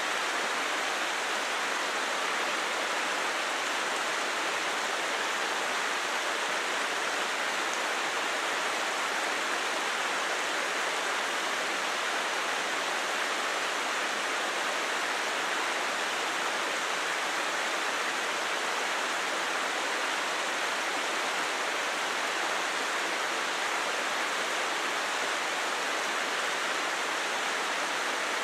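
Mountain creek rushing over rocks: a steady, unbroken rush of water.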